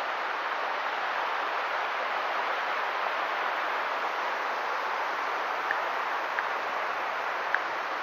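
Chapman Creek's water rushing steadily, with three brief high ticks near the end.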